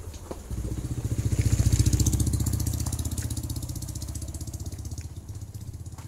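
An engine passing by, rising quickly to its loudest about two seconds in and then slowly fading.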